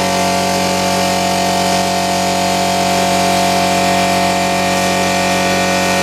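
ABAC 2HP direct-drive piston air compressor running steadily under power, a loud, piercing, unchanging drone of motor and pump with hiss.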